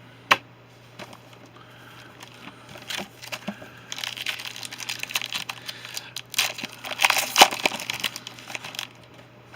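A trading card pack's wrapper being torn open and crinkled, with a sharp click near the start and then several seconds of crackling and rustling, loudest a little past the middle.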